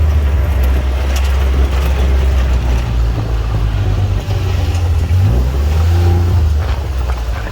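UTV engine running while driving, a low drone that shifts in pitch with speed, rising briefly about five seconds in.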